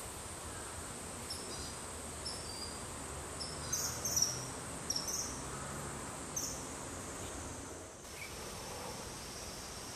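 A bird giving a series of short, high-pitched chirps over a steady outdoor hiss, thickest and loudest around the middle.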